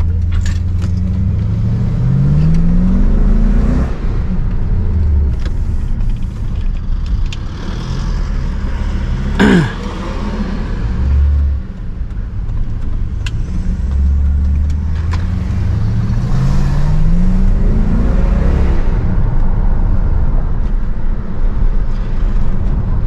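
Car engine and road noise while driving, the engine pitch rising as it accelerates, once about two seconds in and again around fifteen seconds in. A brief falling whoosh about nine and a half seconds in is the loudest moment.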